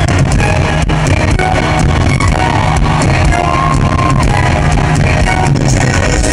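Loud live concert music over an arena PA, with heavy bass, heard from within the crowd.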